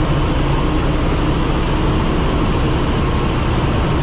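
Tanker engine-room machinery running: a loud, steady, unbroken din with a deep hum underneath.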